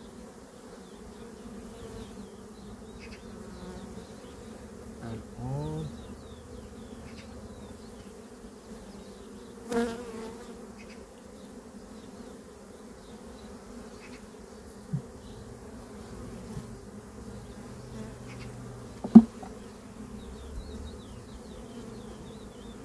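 Swarm of honey bees buzzing steadily around open hives while frames are handled. A small click comes about fifteen seconds in, and a sharp knock, the loudest sound, comes about nineteen seconds in.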